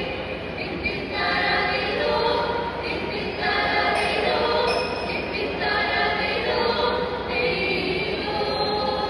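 A mixed group of young men and women singing an Onappattu, a Malayalam Onam song, together in unison, in phrases of a second or two with short breaks between them.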